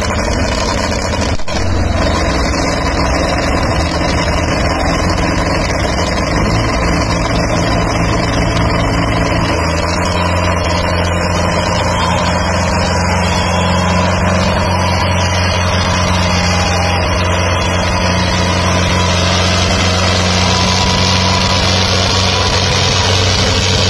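Tractor diesel engines running steadily under heavy load as two tractors chained back to back pull against each other in a tug-of-war; a loud continuous drone whose deep note becomes steadier and stronger about ten seconds in.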